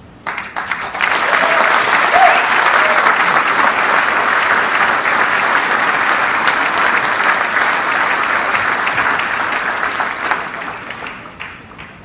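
Large audience applauding, swelling to full within the first second and dying away over the last couple of seconds.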